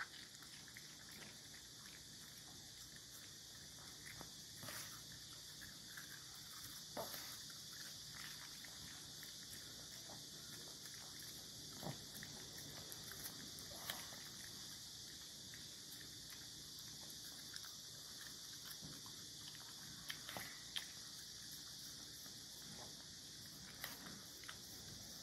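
Long-haired Chihuahua licking ice cream off a silicone stick: faint, scattered wet licks and tongue clicks, a few sharper ones standing out.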